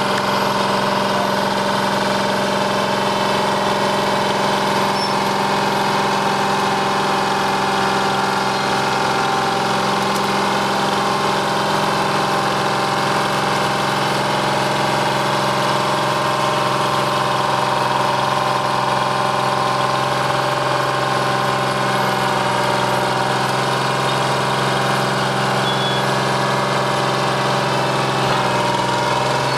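1973 Euclid bulldozer's diesel engine running at a steady, unchanging speed.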